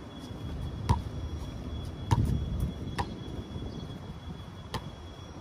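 Basketball bouncing on a concrete court: four separate bounces at uneven spacing, the first two with a deeper thud. A faint steady high whine runs behind them.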